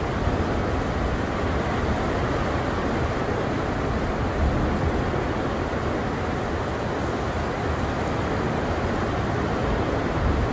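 Heavy thunderstorm downpour as the storm's main core arrives: a steady, even rush of rain with a constant low rumble underneath.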